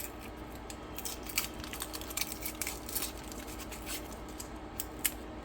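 Dry, papery outer skin of an onion crackling and tearing as it is peeled off by hand, in many small irregular crackles.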